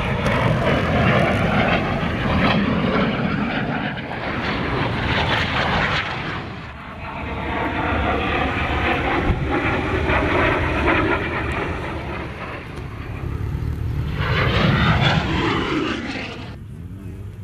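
Lockheed T-33 Shooting Star's single turbojet roaring past overhead, with a swishing sweep as it goes by. It swells and fades about three times, dropping away near the end.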